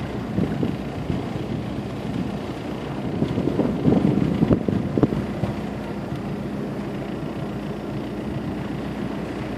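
Small motorboat's engine running steadily at low, no-wake speed, with water noise around the hull. A cluster of louder knocks and thumps about four to five seconds in.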